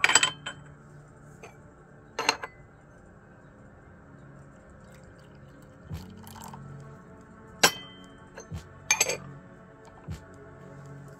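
Gongfu teaware clinking: several sharp clinks, some with a brief ring, the loudest at the start and about two-thirds of the way in, over soft background music.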